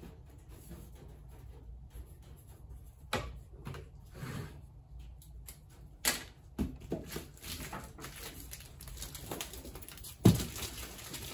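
Items being handled and packed by hand: a series of scattered clicks, knocks and short rustles, with a loud knock about ten seconds in.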